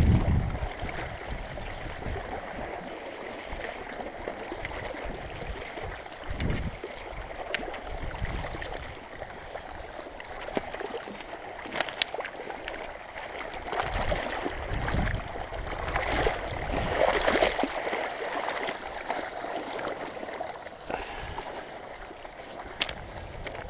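Shallow river water sloshing and trickling at a shingle edge, with splashes as a wels catfish is drawn through the shallows onto the bank; the splashing is loudest in the middle stretch.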